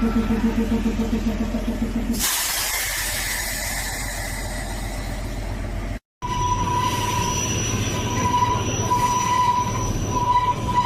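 Kalka–Shimla narrow-gauge toy train on the move. First comes a pulsing engine sound. About two seconds in it changes to a rushing running noise. After a brief break near the middle, there is a low rumble with a steady high-pitched wheel squeal.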